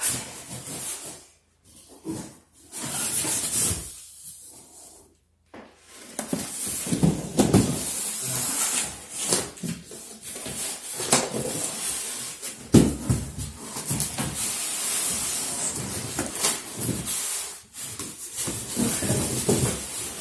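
A large cardboard carton and its packing being handled: scraping and sliding of cardboard, rustling plastic wrap and polystyrene, with a few dull knocks. The handling is patchy for the first few seconds, then nearly continuous.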